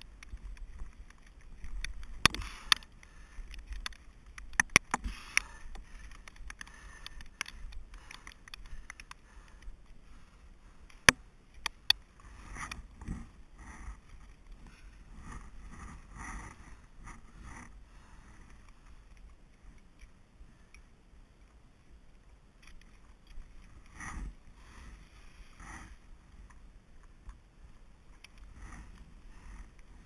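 Ice axe picks and crampon points striking into waterfall ice. A series of sharp strikes comes in the first twelve seconds, the loudest about eleven seconds in, followed by softer scraping and knocking on the ice.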